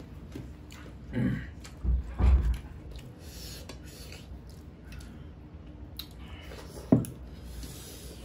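Eating sounds: chewing and hands squishing rice on steel plates, with a few short dull thumps around two seconds in and one sharp knock about seven seconds in.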